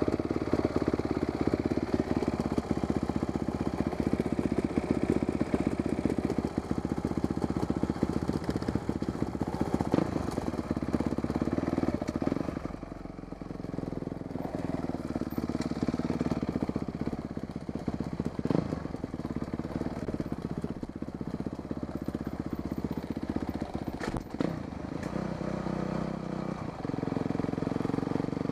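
Dirt bike engine running at low trail speed, the throttle opening and closing. Louder through the first dozen seconds, it eases off for a long stretch and picks up again near the end, with a couple of sharp knocks as the bike goes over rough ground.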